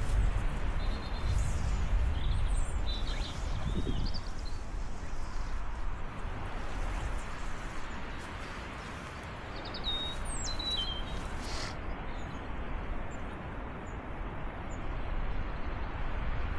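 Wind buffeting the microphone, a steady rushing rumble, with small birds chirping: a cluster of short high calls in the first few seconds and another around ten seconds in.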